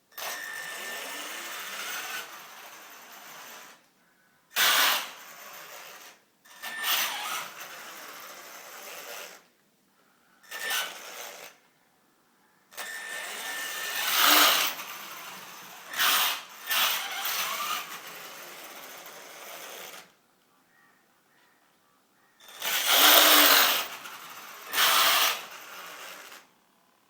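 HPI Savage Flux HP radio-controlled monster truck's brushless motor and drivetrain run in six throttle bursts of a few seconds each, each opening with a loud punch, with a grinding noise whose cause the owner cannot find.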